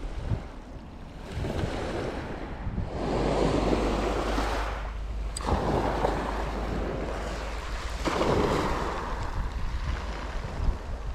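Small waves breaking and washing over a shingle beach, the surf swelling and fading every couple of seconds, with wind rumbling on the microphone.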